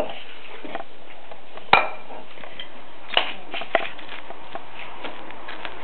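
A basset hound settling down onto a tiled floor: a few sharp clicks and knocks, the loudest about a second and a half in and two more a couple of seconds later, over a steady hiss.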